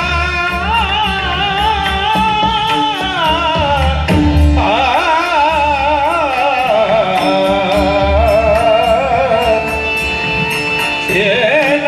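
A male voice sings a Marathi devotional abhang in long, ornamented held phrases, to harmonium and two-headed barrel-drum accompaniment. A new phrase begins about four seconds in.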